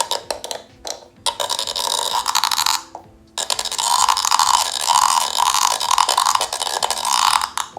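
Tiny cell-phone-style vibration motor with an offset weight buzzing against a cup, rattling it loudly. It comes in bursts: a shorter one, a brief pause about three seconds in, then a longer buzzing rattle of about four seconds with a throb pulsing about twice a second.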